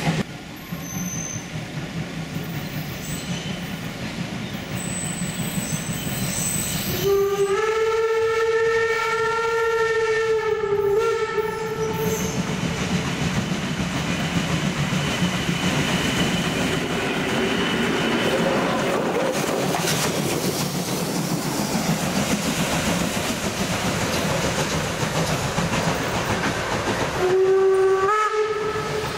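Steam locomotive running with a steady rumbling noise. About seven seconds in it sounds a long whistle lasting about five seconds, then a shorter whistle blast near the end.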